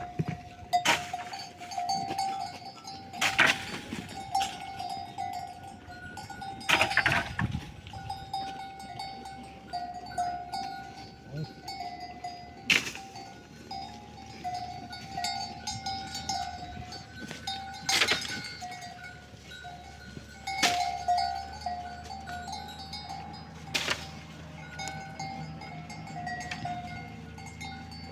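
Livestock bells clinking on and on at one pitch as a flock moves, with a few louder brief knocks or rustles now and then.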